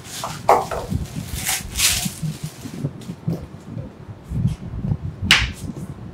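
Clear plastic packaging rustling and crinkling as products are pulled out of their bags and handled, with one sharp, louder crinkle about five seconds in.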